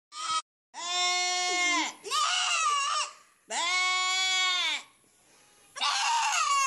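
A goat bleating: a short call, then four long, arching bleats of about a second each with short pauses between them, two of them hoarse and screaming.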